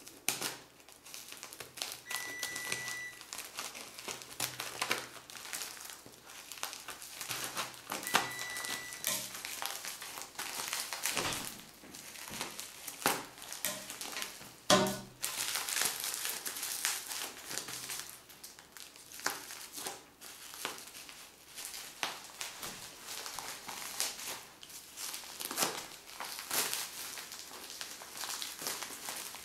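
Scissors cutting and hands pulling open a parcel wrapped in brown plastic packing tape: continual crinkling and crackling of the tape and plastic wrap, with a sharp knock about halfway through. Two short high beeps sound near the start and again about eight seconds in.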